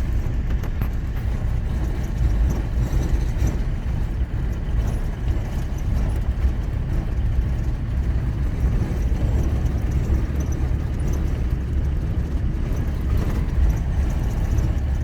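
A car driving at a steady pace: an even, continuous low rumble of engine and road noise.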